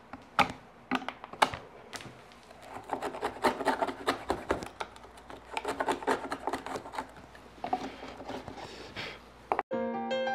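Hand chisel working softwood window-lattice bars: a few sharp cuts, then a long run of quick scraping strokes as a groove is pared clean. Near the end it cuts abruptly to chiming music.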